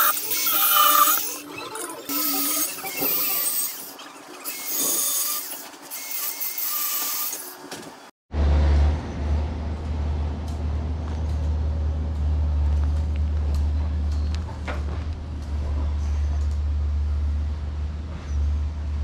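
Angle grinder grinding steel on a welded column base plate, its rough, high-pitched grind swelling and dipping as the disc is worked over the metal, then stopping abruptly about eight seconds in. After that a steady low rumble continues.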